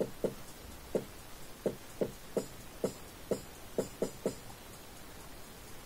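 Quiet, sparse instrumental break of a rap beat: about a dozen short, soft percussive notes in an uneven rhythm, a few with a crisp high tick.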